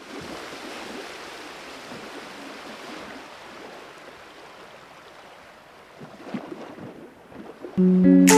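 Soft crackly rustling of a sponge cake being torn apart by hand, fading a little, with a few sharper crackles about six seconds in. Plucked guitar music starts near the end.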